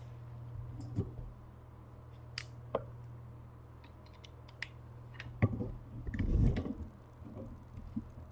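Handling noise from a camera being fiddled with to charge its battery: scattered sharp clicks and small knocks, then a run of thumps and rubbing about five to seven seconds in, over a steady low hum.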